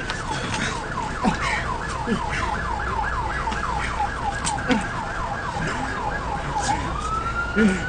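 Emergency vehicle siren in rapid yelp mode, about four falling sweeps a second, switching near the end to a slow wail that climbs in pitch.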